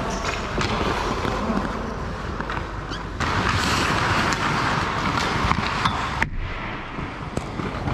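Ice hockey practice on the rink: a steady scrape and hiss of skate blades on the ice, with scattered sharp knocks of sticks and puck. The hiss grows louder about three seconds in and thins out suddenly a few seconds later.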